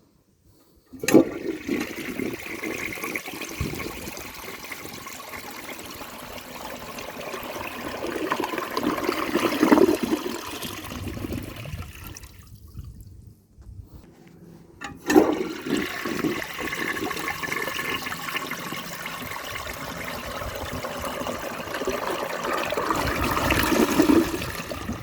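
1967 Crane Canada toilet flushing twice. Each flush starts abruptly, and water rushes through the bowl for about ten seconds, swelling louder near its end. The first flush starts about a second in and stops short about halfway through; the second starts a couple of seconds later.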